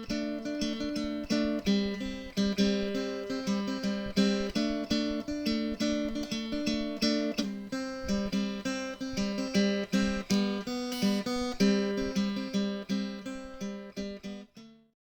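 Outro music: acoustic guitar, strummed and plucked in a steady rhythm, ending abruptly near the end.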